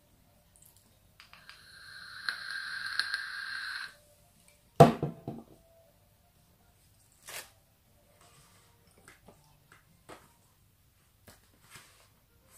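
Vape pen being drawn on: a rising hiss and sizzle of air through the device for about two and a half seconds, then a sudden short loud burst about a second later. Light scattered clicks and rustles follow as a flour tortilla wrap is handled on the plate.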